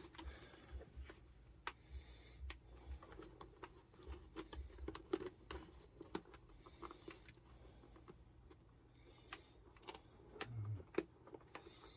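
Faint, scattered clicks and rustles of hands tucking a Bluetooth headset's wire under a motorcycle helmet's inner lining and padding.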